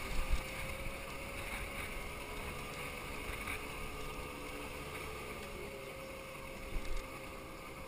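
Scooter engine running steadily at cruising speed, with wind rushing over the microphone and two brief low thumps, one just after the start and one near the end.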